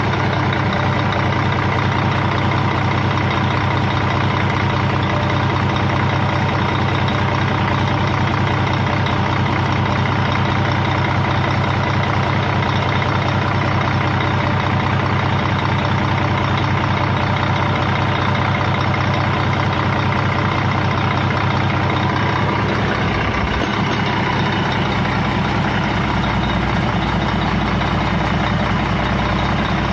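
Doosan DX12 diesel engine, just rebuilt after an overhaul, running steadily at idle. Its low drone shifts slightly about three-quarters of the way through.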